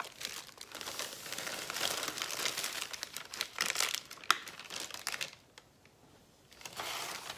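Plastic cake-mix bag crinkling as it is shaken out over a mixing bowl, with one sharp tap about four seconds in. The rustling pauses for about a second near the end, then comes back briefly.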